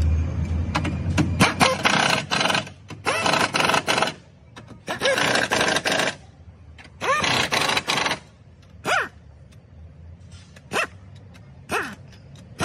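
Pneumatic wrench running the bolts on a Kia Optima engine mount in repeated short bursts, its pitch rising and falling as the air motor spins up and down: four bursts of about a second each, then three brief blips near the end.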